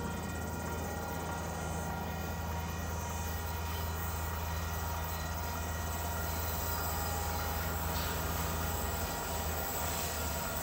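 Two DL-class diesel-electric locomotives approaching with a train, a steady low engine drone that slowly grows louder as they draw near.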